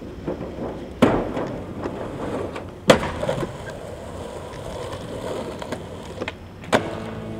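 Skateboard dropping off a metal canopy roof: a sharp clack about a second in, then a loud landing slam on the concrete about three seconds in, followed by wheels rolling across the concrete and another sharp clack near the end.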